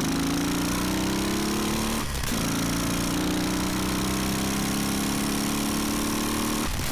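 Laverda 750 parallel-twin motorcycle engine heard from onboard under acceleration, its pitch rising steadily. There is a brief drop for a gear change about two seconds in and another near the end, with wind noise throughout.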